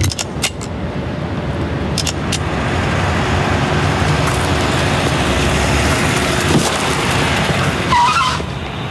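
A car driving, its engine and road noise running steadily, with a few clicks in the first two seconds and a short wavering squeal near the end.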